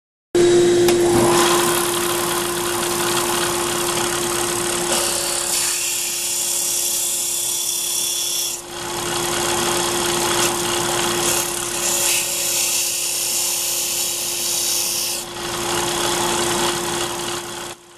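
Bench disc sander running with a steady motor hum while a wooden stick is pressed against the sanding disc, giving a rasping hiss. The rasping grows louder and brighter twice, for a few seconds each time, as the wood is pushed harder into the disc.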